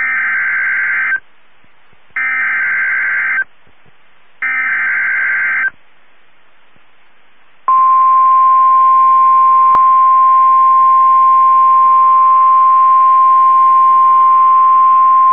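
NOAA Weather Radio Emergency Alert System alert: three SAME data header bursts of about a second each, a second apart, then after a short pause the steady single-pitch 1050 Hz warning alarm tone begins and holds. It is the alert that precedes a severe thunderstorm warning.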